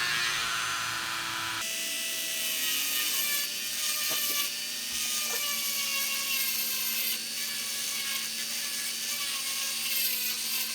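Dremel rotary tool running at high speed with a hand-ground cutter, plunging into and grinding along a firebrick: a steady whine over a gritty hiss. Its pitch shifts about two seconds in, and there are a few clicks four to five seconds in.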